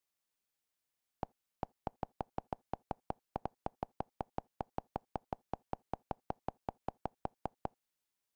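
Navigation click sound of the TiviMate IPTV app, one short tick for each step as the channel guide scrolls down. A lone tick a little past a second in, then a rapid, even run of about five ticks a second that stops near the end, followed by one last tick.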